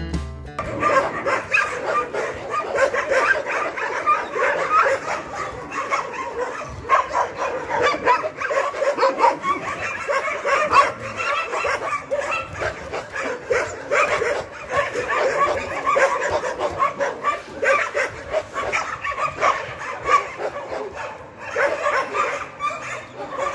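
Dogs barking and yipping, short calls following one another without a break.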